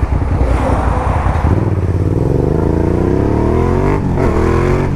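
Suzuki SV650N's 645 cc V-twin engine pulling away on low revs, then rising in pitch as the motorcycle accelerates, with a gear change about four seconds in that drops the revs before they climb again.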